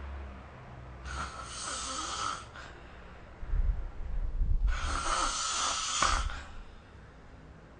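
A sleeping person snoring: an airy snoring breath about a second in, then a low snore around the middle that runs straight into a louder airy one, followed by quieter breathing.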